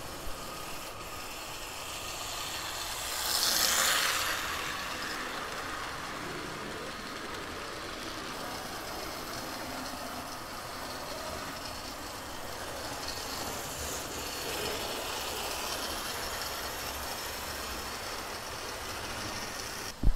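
HO scale model train running on the layout track: a 1950s-era locomotive's small electric motor whirring and its wheels rolling over the rails as it hauls a string of cars. The sound swells for a couple of seconds about three seconds in, as the train passes close by.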